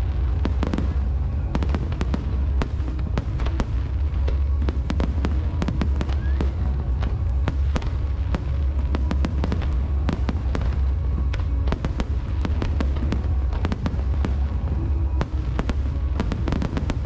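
Aerial fireworks going off in quick succession: a dense run of sharp crackles and bangs over a continuous low rumble.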